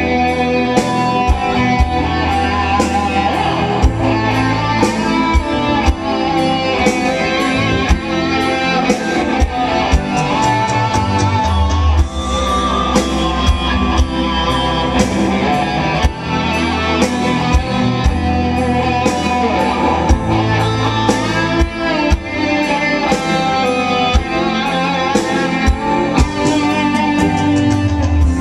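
Electric guitar from a gold-top Les Paul-style guitar, played lead over a band backing with a steady drum beat and a low bass line.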